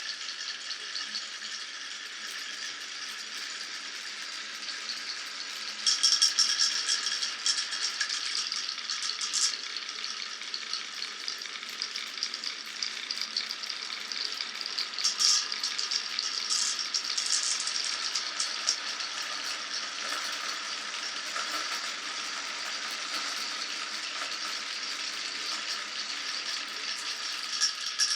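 Many glass marbles rolling and clattering down a wooden marble run, a dense continuous rattle of small clicks, with louder bursts of clatter about six seconds in and again around fifteen seconds.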